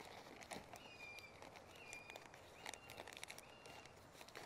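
Faint birdsong in near quiet: a small bird gives about three short, thin whistles, each held at one pitch, with a few faint clicks in between.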